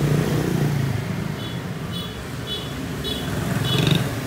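Robin NB50 bush cutter's small two-stroke engine running, revving up at the start and again near the end. A high chirp repeats about every half second from a little past one second in.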